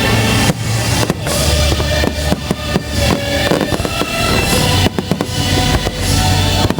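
Fireworks display: shells bursting in clusters of sharp bangs over loud music with a drum beat.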